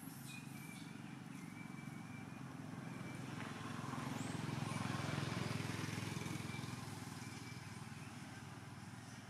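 A motor vehicle passing by: a low engine drone that grows louder to a peak about five seconds in, then fades away.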